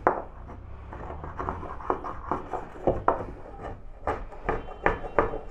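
Miniature brass bullnose hand plane worked in short quick strokes along a wooden board edge, its blade taking fine shavings with a dry scraping rasp at about two strokes a second.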